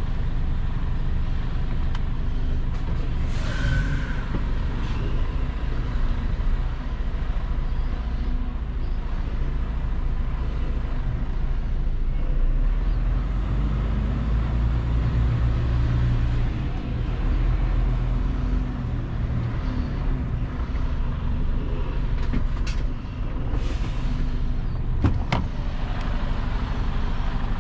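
Truck tractor unit's diesel engine running steadily, with a short hiss about three seconds in and again near the end.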